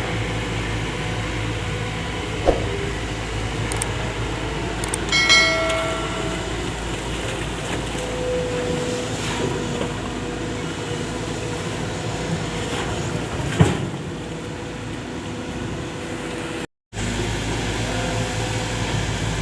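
Volvo 210 excavator's diesel engine running steadily under work, with a couple of sharp metallic knocks and a brief high squeal about five seconds in.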